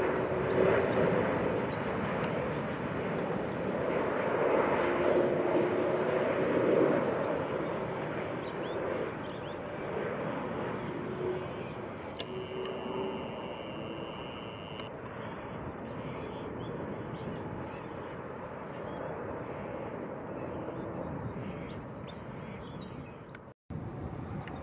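Airbus A330 airliner on final approach, a steady rushing jet noise loudest at first that slowly fades as the aircraft passes and descends toward the runway. The sound cuts out for an instant near the end.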